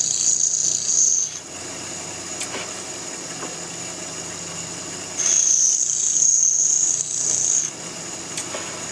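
Bench grinder wheel grinding a mild steel lathe-tool blank, a loud high hiss for about the first second and again from about five seconds to nearly eight, with the grinder running more quietly between.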